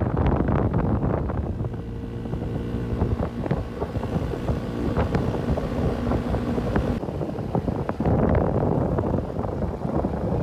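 Wind rushing over the microphone on a moving motorbike, with the engine running steadily underneath.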